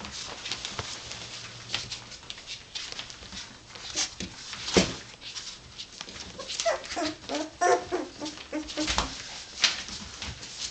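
Three-week-old Irish terrier puppies whimpering and squeaking, a run of short cries past the middle, over scratching and crinkling of newspaper as they crawl about.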